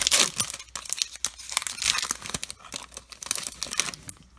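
A Topps Chrome baseball card pack wrapper being torn open and crinkled in the hands, with dense crackling that dies down near the end.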